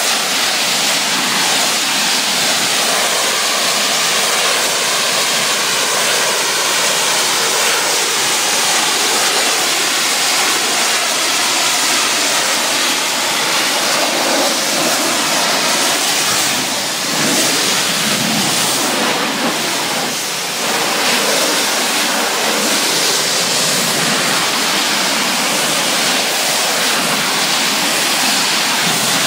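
Pressure washer spraying a high-pressure jet of water against a wall: a loud, steady hiss of spray.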